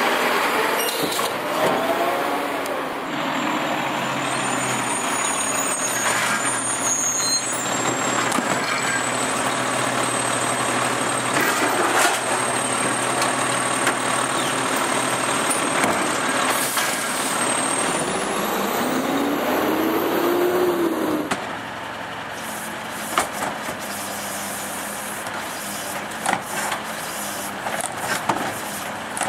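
Garbage trucks' diesel engines running loud while their hydraulic lift arms raise and tip wheeled carts into the hopper, with a rising whine about two-thirds of the way through. After that it is quieter, with a few sharp knocks of the cart and tipper.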